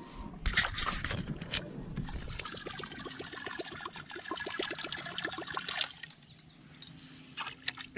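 Joe Bucher TopRaider topwater lure splashing down, then reeled across the surface. Its spinning tail churns the water in a quick, even gurgle of several beats a second with a hum and a chirping edge. The gurgle fades about six seconds in.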